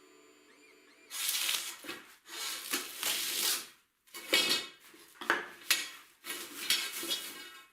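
Metal scraping and clattering in about five bursts, each roughly a second long, with a ringing edge.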